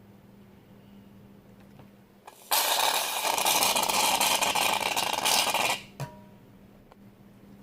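Aerosol can of shaving foam spraying: a steady hiss lasting about three seconds that cuts off sharply, followed by a light click.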